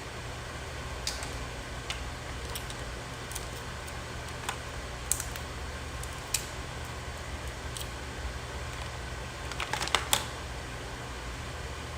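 Scattered light clicks and taps, about a dozen spread out, with a quick cluster of sharper clicks about ten seconds in, over a steady low hum.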